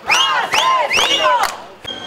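A crowd of protesters shouting a chant in unison, a quick run of loud shouted syllables, two to three a second, that stops about one and a half seconds in, followed by a sharp click just before the end.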